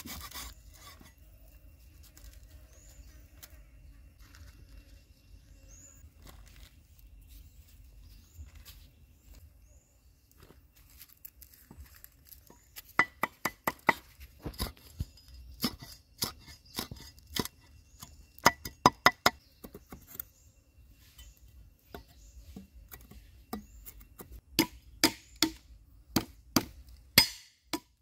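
A cleaver chopping on a wooden stump chopping block, heard as runs of quick, sharp knocks. They come after a long faint stretch, with one burst in the middle and another near the end as chillies are chopped.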